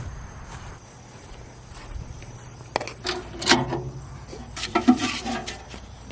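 Insects, crickets among them, chirring steadily, with a few sharp knocks and rattles of handled objects near the middle.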